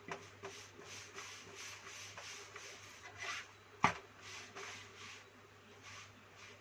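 Chapati being worked on a hot griddle: soft rubbing and scraping strokes about every half second, with one sharp knock about four seconds in.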